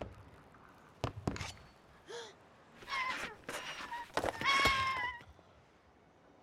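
A few knocks about a second in, then a wounded baby dragon's high squealing cries, in two stretches; the second, about four to five seconds in, is the loudest and held for nearly a second.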